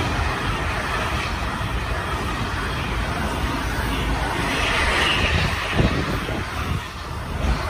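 Intermodal freight train of pocket wagons loaded with lorry trailers and containers rolling past close by: a steady rumble and rush of steel wheels on rail, with a couple of sharp knocks from the wheels and wagons near the end.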